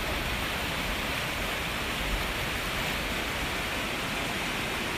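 Muddy floodwater rushing in a fast torrent down a flooded street, a steady rushing noise that holds level throughout.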